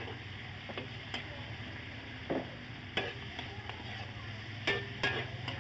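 Raw pork pieces sizzling faintly in a wok as a metal spatula stirs them, with about six sharp scrapes and taps of the spatula against the pan, over a steady low hum.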